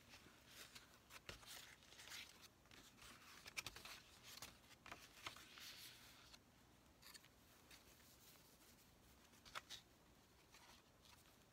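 Faint, sparse rustling and light clicks of paper being handled on a handmade paper journal.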